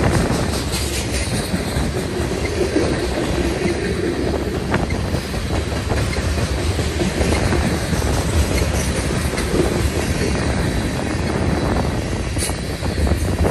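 Loaded freight train cars, tank cars and then open hopper cars, rolling past with a steady clatter of steel wheels over the rails and many small clicks.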